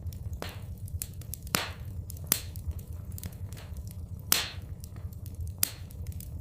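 Wood fire in a fireplace crackling: irregular sharp pops and snaps, four of them louder than the rest, over a steady low rumble.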